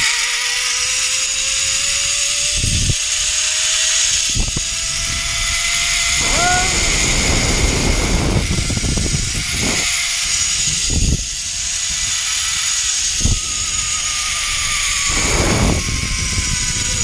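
Zipline trolley's pulley wheels running along the steel cable, a steady whine that rises in pitch over the first several seconds as the rider gathers speed, then holds. Heavy wind rush and buffeting on the camera's microphone from the ride.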